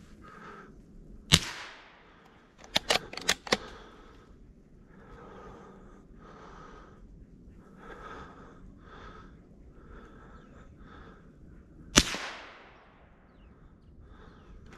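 Two shots from a .22 rifle about ten seconds apart, each a sharp crack with a trailing echo. About a second after the first shot comes a quick run of sharp clicks.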